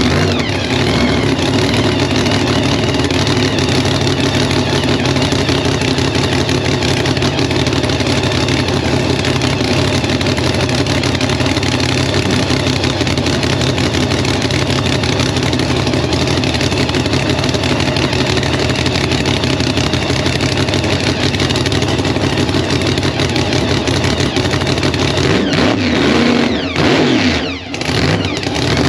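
1967 Chevy II Nova race car's engine held at high, steady revs, with the revs dropping and rising again a few seconds before the end.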